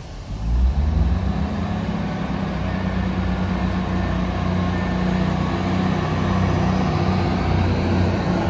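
Diesel multiple unit's engines throttling up as the train pulls away: a sudden rise about half a second in, then a steady low engine drone that climbs slowly in pitch as it gathers speed.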